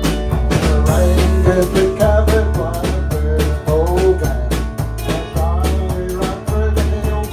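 A band playing, with a steady drum-kit beat, a held bass line and a melody line that bends in pitch over it.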